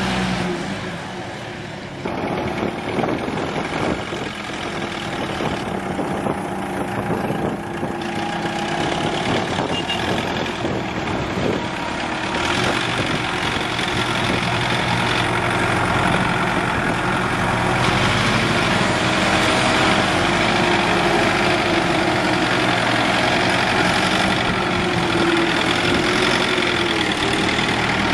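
Farm tractor engines running steadily under load as the tractors work through deep mud.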